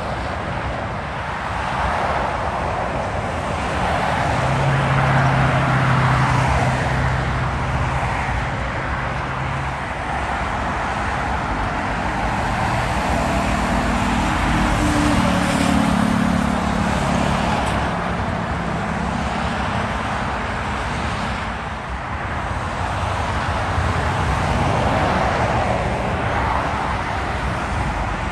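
Steady motorway traffic: tyre noise and engines of lorries and cars passing close by, swelling as each vehicle goes past. A low diesel engine hum stands out twice, about five seconds in and again around the middle.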